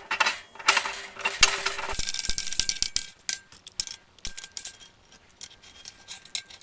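Metal clinking and scraping as a gas pipe is fitted into the bottom of a patio heater head. After about two seconds this gives way to a run of quick, light ticks.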